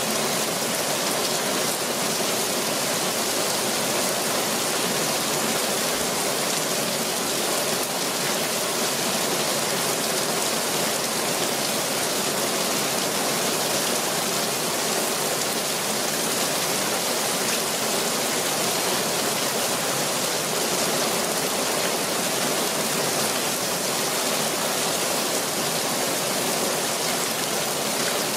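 Heavy rain falling steadily, with runoff pouring from the corner of a fabric shade sail and splashing down.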